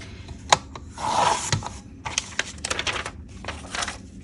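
Sheets of paper and cardstock being handled and shuffled: a sharp tap about half a second in, a rustling slide about a second in, then a run of quick clicks and rustles.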